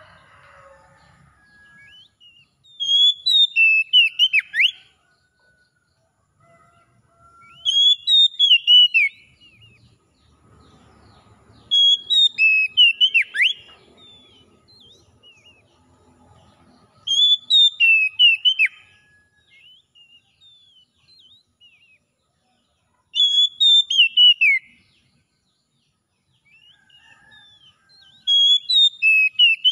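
Oriental magpie-robin (kacer) song: short phrases of clear, whistled notes sweeping up and down, each about two seconds long. Near-identical phrases come six times at even gaps of about five seconds.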